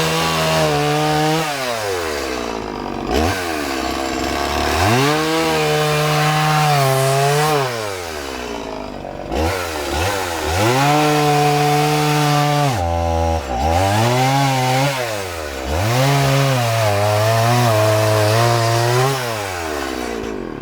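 Chainsaw cutting into a wooden log to rough out a bear carving. The engine holds a high, steady pitch through each cut, then drops back and revs up again between cuts several times.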